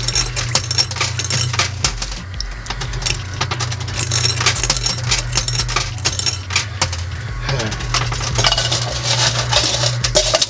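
Quarters clattering and clinking in a coin pusher machine: a dense run of quick metallic clicks over a steady low hum. This is a bonus-hole payout, a lot of quarters dropping.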